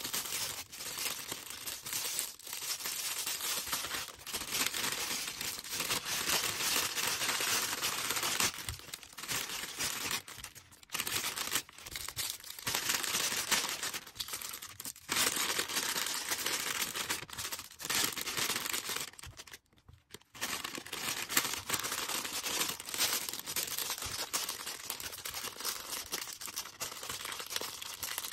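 Packaging being handled by hand, crinkling and rustling almost without a break, with brief lulls and a short near-silent gap about twenty seconds in.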